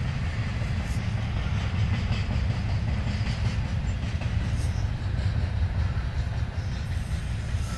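Double-stack container well cars of a freight train rolling past, a steady rumble of steel wheels on rail with a few faint clicks over the rail joints.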